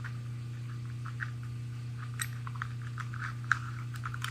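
Small machined metal parts clicking and scraping as a tiny dial is worked by hand into a lock body to make it engage, with a few sparse sharp clicks, the loudest about three and a half seconds in. A steady low hum runs underneath.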